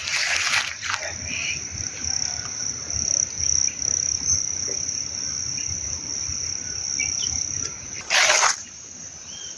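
Insects calling outdoors: one steady high-pitched buzz held throughout. Short rushes of noise break in during the first second and again about eight seconds in.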